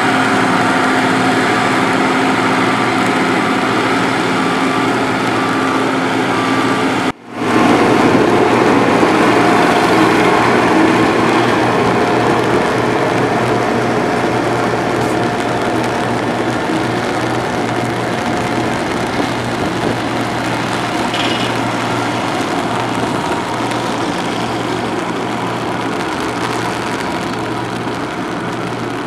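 Diesel engines of road-construction machinery running steadily, with a brief dropout about seven seconds in.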